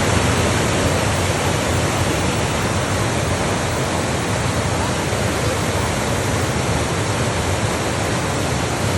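Loud, steady rush of fast-flowing water.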